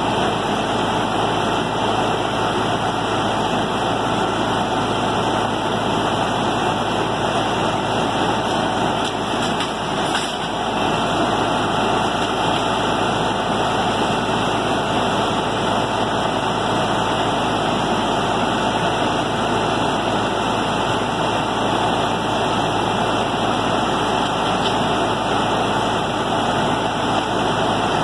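Heavy diesel truck engine running steadily, powering the hydraulic grapple boom as it lifts a load of debris.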